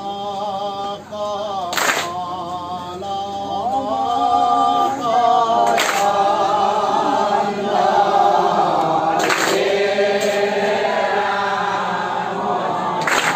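A congregation of men and women singing nam-prasanga, Assamese devotional chanting, together in long, wavering unison lines. A sharp, bright stroke cuts across about every four seconds.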